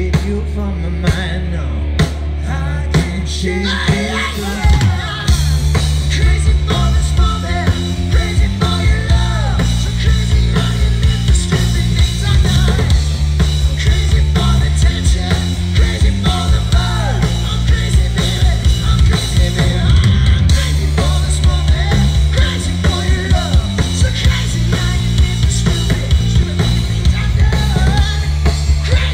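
Rock band playing live through a PA at a sound check: drum kit, bass and electric guitar with a sung lead vocal. The bass line changes about four to five seconds in.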